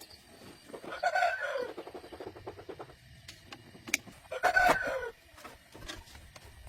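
A rooster crowing twice, each crow about a second long and dropping in pitch at the end, with scattered light clicks and knocks between.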